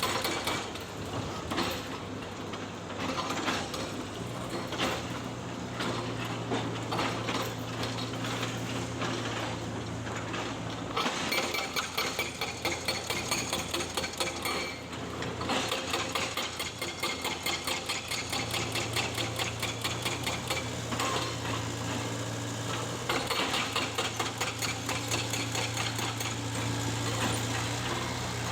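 Tracked excavator's diesel engine running, its hum stepping up and down in pitch a few times, with rapid metallic clattering and knocks.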